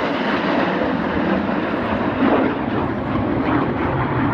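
Steady rushing jet noise from the Red Arrows' BAE Hawk T1 jets flying in close formation.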